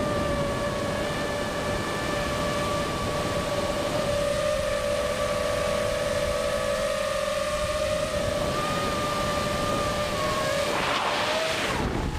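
Multirotor drone's electric motors and propellers whining at a steady pitch, picked up by the onboard camera. Near the end a rush of wind noise hits the microphone.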